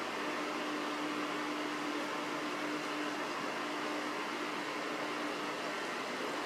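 Small desk circulator fan running: a steady whir of moving air with a low motor hum, which weakens near the end.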